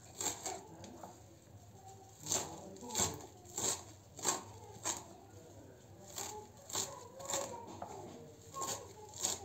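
Kitchen knife chopping fresh herbs on a plastic cutting board: irregular sharp knocks of the blade on the board, about one or two a second.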